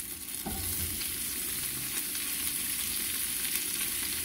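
Hot oil sizzling in a frying pan as sliced white onion is tipped in, with a soft thump about half a second in as the onion lands; the sizzle then goes on steadily.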